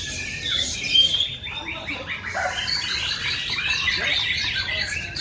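Many caged songbirds singing over one another: a dense, loud tangle of whistles, trills and chirps.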